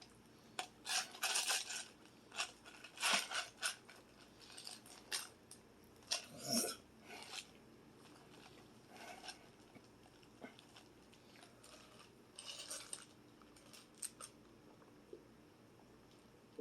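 Close-up eating sounds: irregular crunches, chewing and small clicks of cutlery and food containers, busiest in the first seven seconds and sparser later.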